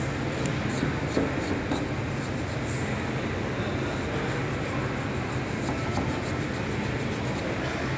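A plastic squeegee card rubbing and scraping across a phone's protective film to smooth it down, with faint quick ticks, over a steady background hum.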